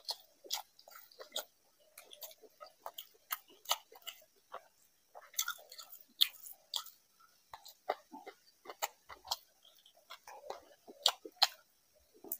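Close-miked eating sounds of a man chewing rice and fish curry eaten by hand: irregular sharp smacks and clicks, several a second.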